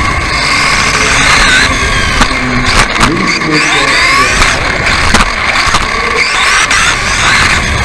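Onboard sound of a radio-controlled off-road buggy racing, heard close up from the car itself. Its motor's whine slides up and down with the throttle over drivetrain and rushing noise, and several sharp knocks come from bumps and landings.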